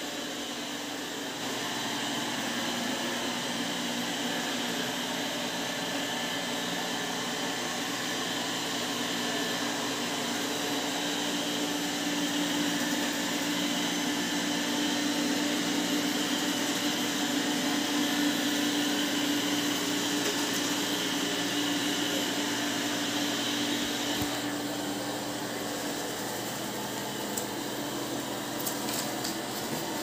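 Midea M6 robot vacuum cleaner running, a steady whir of its suction motor with a constant hum. It gets a little louder about a second and a half in and duller about three-quarters of the way through, with a few light clicks near the end.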